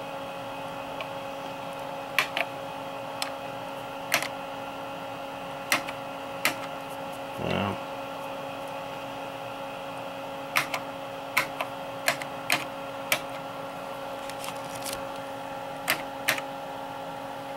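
Front-panel keys of a bench signal generator being pressed one at a time, a dozen or so sharp clicks at irregular intervals, over a steady electrical hum from the bench equipment.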